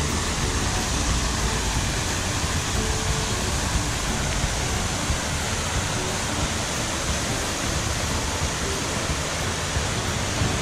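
Water of a large fountain splashing and falling, a steady rushing sound.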